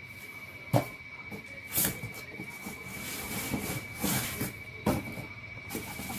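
Handling noise while unpacking a mixer grinder: several sharp knocks with rubbing and scraping of the parts and packaging between them. A faint, steady high-pitched whine runs underneath.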